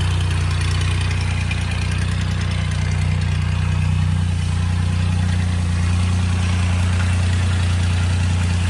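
Sonalika DI 22 4x4 mini tractor's diesel engine running steadily with a low, even hum.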